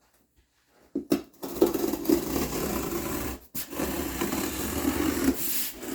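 A knife blade sawing and scraping through the cardboard and tape of a shipping box, after a couple of clicks, in two long rasping strokes with a short pause between. The blade cuts poorly, by the owner's account.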